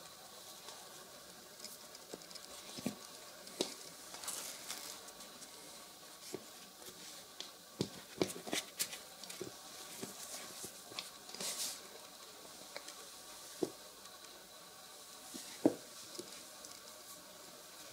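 Shoes being handled and shifted about on a wooden floor: scattered light taps and brief brushing rustles of fabric and soles, with one sharper knock near the end.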